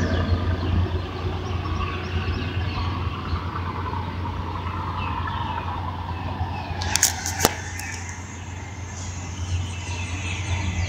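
Stone freight train rolling out: a steady low rumble with rattling and clatter from the wagons. It softens about eight seconds in and builds again near the end, with a few sharp clicks just before the dip.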